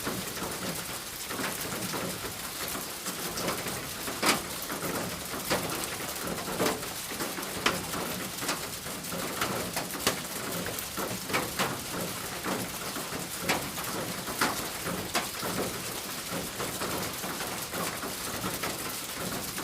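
Rain falling on a roof: a steady hiss of patter with irregular louder drops striking it every second or so.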